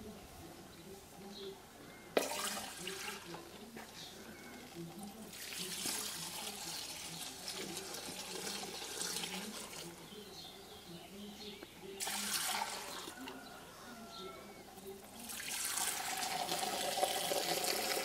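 Mezcal poured in a thin stream from height into a dried gourd bowl, splashing and frothing, in several separate pours. The blend is being aerated to check its pearling, the beads on the surface that show its alcohol strength.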